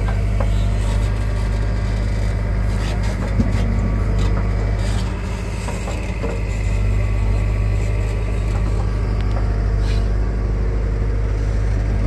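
Bull SD backhoe loader's diesel engine running steadily under load while the backhoe bucket digs soil and swings it to a trolley, with scattered short knocks and scrapes of the bucket in the earth.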